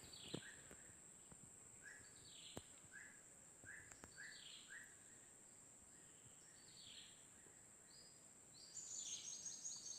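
Faint outdoor ambience: a steady high insect drone under repeated short, falling bird chirps, about one a second, that crowd together near the end.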